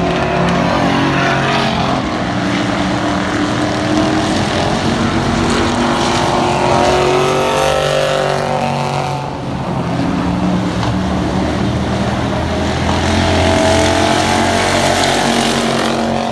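Race car engines running at speed around an oval track. Their pitch rises and falls as the cars come past, with one pass most clearly heard around the middle.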